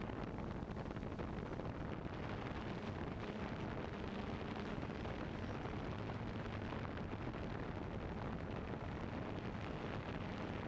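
Steady whirring rush of a camera drone's own propellers heard from the drone-mounted camera, mixed with wind on the microphone, at an even level throughout.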